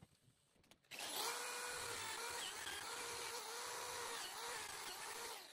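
Corded electric drill running at a steady whine, working its bit against the carved wood. It starts about a second in and cuts off near the end, with small dips in pitch along the way.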